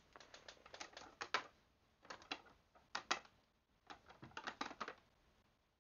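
Irregular clusters of light clicks and taps from plastic golf discs being handled and knocked against each other, in four short bursts.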